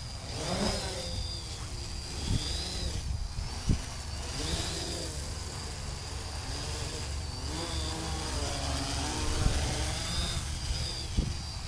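Quadcopter's four SunnySky 2212 980kv brushless motors spinning 10-inch (1045) plastic props, buzzing like a horde of bees, their pitch rising and falling as the craft manoeuvres, over a low rumble and a few short knocks.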